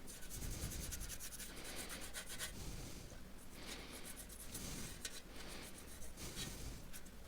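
Faint scrubbing of a small paintbrush on the rusty steel of a PC case, in irregular strokes with short pauses, working off rust loosened by a citric-acid de-rust soak.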